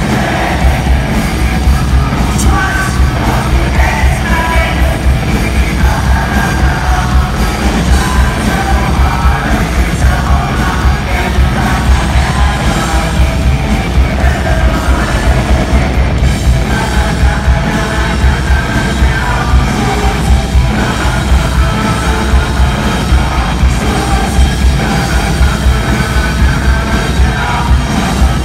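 Live rock band playing loud, with a male lead singer belting over amplified guitar, bass and drums keeping a steady beat.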